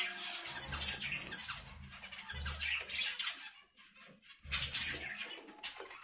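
Budgerigars chattering: a dense stream of rapid squeaky warbles and chirps, with a short lull a little past the middle.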